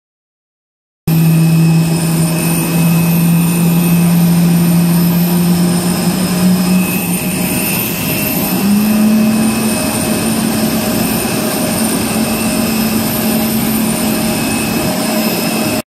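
Jet airliners on the apron giving a steady, loud whine made of several held tones over a rushing noise; about seven to nine seconds in the main low tone drops out and a slightly higher one takes over.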